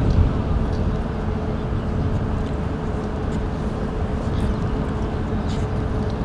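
Steady low rumble of outdoor background noise, like wind on the microphone or distant traffic, with a faint constant hum running through it.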